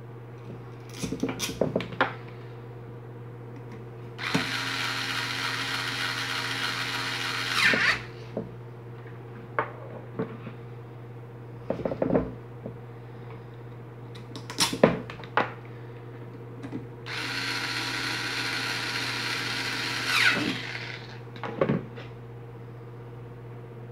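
Electric screwdriver or drill running twice, for about three and a half seconds each time, driving the screws that hold the fan motor's end housing together. Between the runs, clicks and knocks of the metal motor being handled, over a steady low hum.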